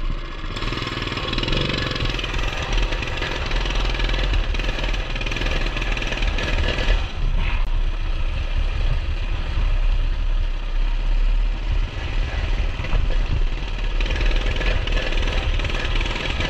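Coleman CT200U mini bike's small single-cylinder four-stroke engine running just after starting, rough and uneven. The owner calls it not happy and puts this down to the untuned carburetor running a little rich.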